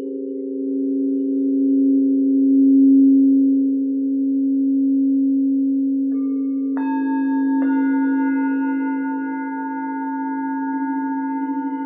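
Singing bowls: low bowls sounding steady, slowly wavering tones, joined just past the middle by two higher bowls struck in quick succession. Their ringing tones then hang over the low drone.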